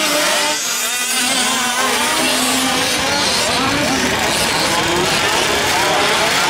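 Small two-stroke engines of several 1/5-scale gas RC trucks racing, their pitch rising and falling with the throttle as they speed up and slow down through the course.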